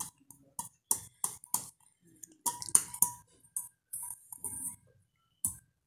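Empty stainless steel bowl clinking and ringing as a baby handles and knocks it: about a dozen short, irregular metallic clinks.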